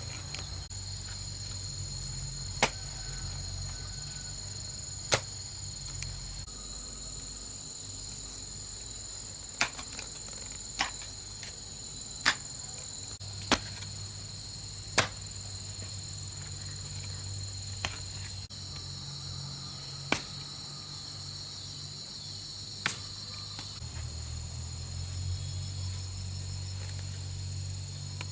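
Insects trilling steadily in the background, broken by about ten sharp knocks or chops at uneven gaps of one to three seconds.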